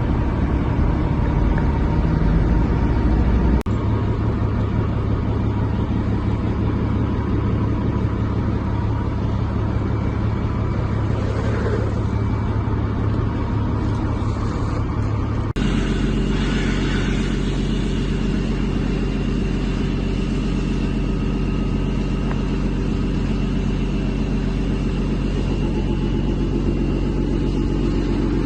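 Steady low engine rumble that changes abruptly twice, at cuts between shots.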